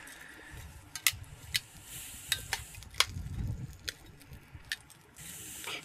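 Metal tongs clinking and scraping against a stainless steel sauté pan as sliced onion rings are turned, in irregular sharp clicks, over a faint sizzle of the onions starting to sauté.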